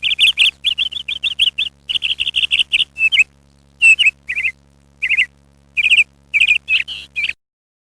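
A bird chirping in quick runs of short, high notes, several a second, with brief pauses between runs; the chirping cuts off abruptly near the end.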